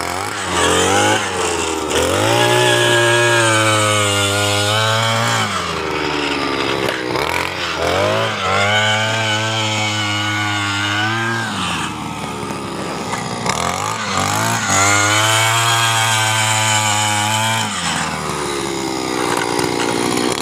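Handheld petrol earth auger's engine revving up and held at high speed for about three seconds, three times, dropping back toward idle in between, as the auger bores holes in the soil.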